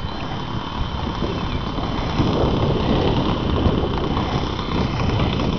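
Radio-controlled model airplane's Saito .91 four-stroke glow engine running throttled back on its landing approach, getting louder about two seconds in as the plane comes in low.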